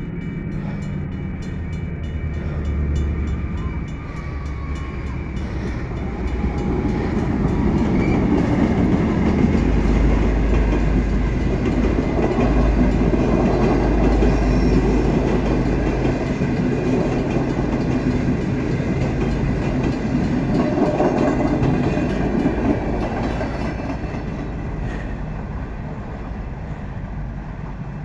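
Long-distance passenger train pulled by two diesel-electric locomotives, a CNR CKD8H and a GT26, passing close by. The locomotives' deep engine rumble builds to its loudest in the middle, then the coaches' wheels clatter rhythmically over the rail joints and fade toward the end.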